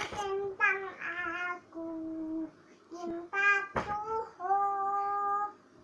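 A toddler singing alone, unaccompanied, in short phrases of held notes, ending on a longer held note.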